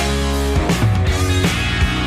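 Background rock music with guitar, bass and a steady drum beat.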